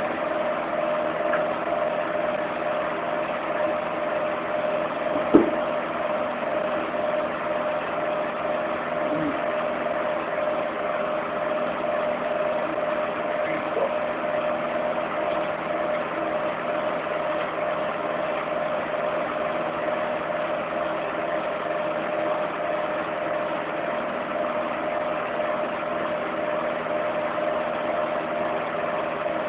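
Element electric fan heater running, its fan giving a steady hum with air rushing. A single short knock about five seconds in.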